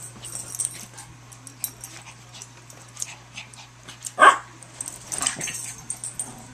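Two small dogs playing, with scuffling and small clicks and one loud, short bark about four seconds in.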